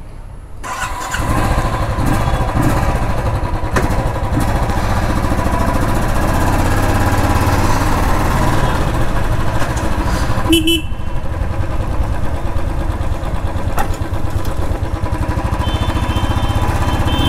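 Motorcycle engine starting about a second in and then running steadily with a rapid, even exhaust beat.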